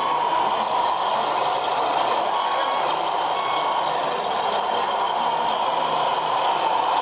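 Sound modules of radio-controlled model trucks playing a truck engine sound with a reversing beeper, steady throughout.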